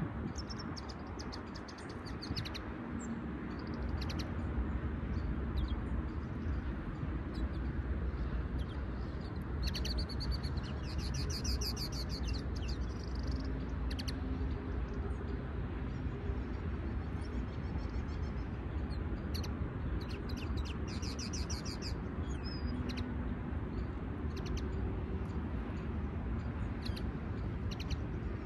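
Caged contest songbirds, among them a linnet hybrid, singing in short bursts of fast twittering trills. The longest bursts come about ten seconds in and again about twenty seconds in, over a steady low rumble.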